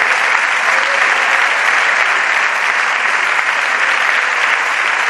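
Members of parliament applauding from their benches: many hands clapping densely at a steady level.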